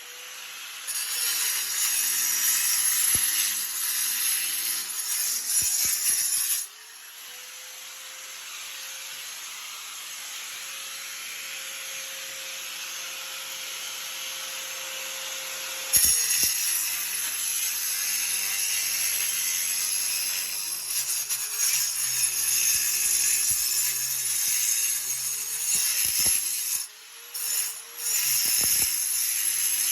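Power tool motor running under load with a loud hiss of cutting or drilling, its pitch wavering as it bites. For several seconds in the middle it runs steadier and quieter, its pitch slowly rising, then cuts back in under load.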